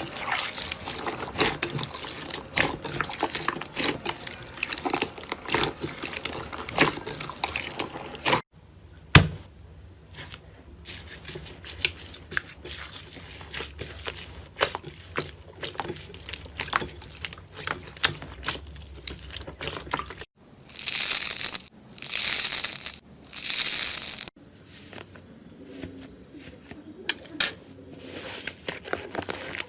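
Slime being squeezed, poked and stretched, giving dense wet clicks and crackles, in several short clips. About two thirds of the way in come three long hissing swells.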